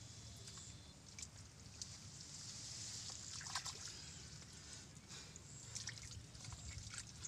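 Faint dripping and trickling of muddy water, with small scattered splashes, as hands grope down into a waterlogged hole in the mud.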